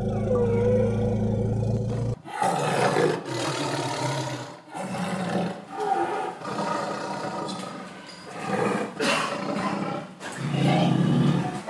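Creature roar sound effect for an animated three-headed dinosaur. A steady low rumbling drone for about two seconds, then a run of rough roars about a second long each, one after another.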